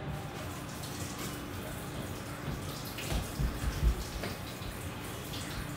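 Kitchen tap running into a sink while dishes are washed by hand, with a few low knocks of dishware about three to four seconds in.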